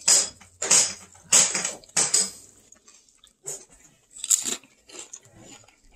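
Loud crunching bites and chewing of a crisp tostada topped with shrimp ceviche, about four crunches in the first two seconds, then softer chewing.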